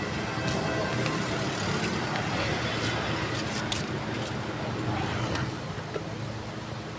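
Street traffic noise: a steady hum of road vehicles, with a few light clicks.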